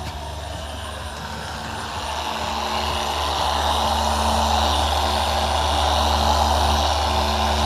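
Electric polishing machine running with a pad against a headlight lens: a steady motor hum under a rushing buzz that grows louder about two seconds in.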